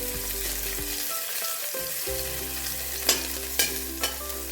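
Fennel seeds and crushed ginger and garlic sizzling in hot sesame oil in a kadai, stirred with a spatula that clicks against the pan three times in the second half.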